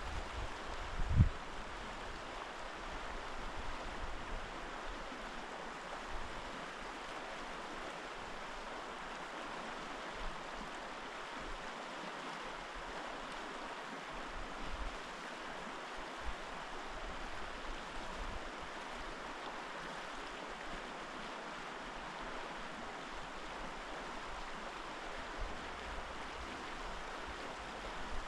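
Steady rushing of a river flowing over its bed. A single low thump about a second in.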